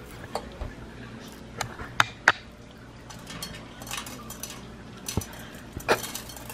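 Candy sprinkles shaken from a small cap, landing on a metal muffin pan rather than on the cupcakes: scattered light ticks and clicks, with a few sharper taps.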